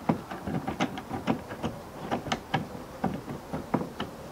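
A loosened gunwale clamp being slid along a canoe's gunwale, making irregular clicks and knocks, about three a second.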